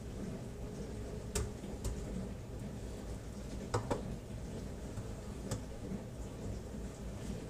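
Kitchen handling noises: a handful of scattered light clicks and knocks, two of them close together near the middle, over a low steady hum.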